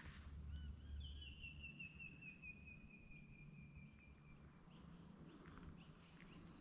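Faint evening bush sound: a bird's rapid trill that glides steadily down in pitch for about four seconds, starting about half a second in, over a steady high insect drone.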